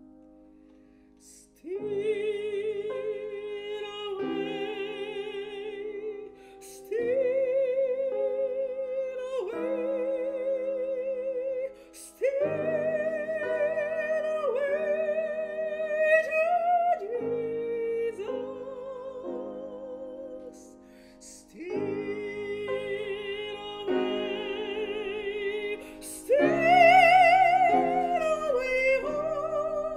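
Soprano singing a classical art song in operatic style with a wide vibrato, accompanied by piano. She comes in after a quiet moment at the start and sings in long held phrases separated by short breaks, swelling to her loudest, highest notes near the end.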